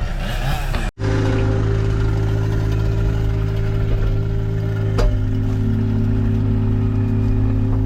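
Small machine engine, likely the mini skid steer's, running steadily at a constant speed after a short break about a second in. A steady whine joins about five seconds in, and there is one sharp click.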